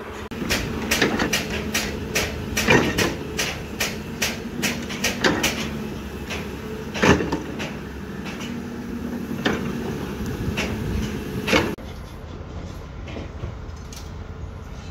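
Construction work: irregular sharp clanks and knocks over a steady machine engine hum, cutting off suddenly near the end and leaving quieter site noise.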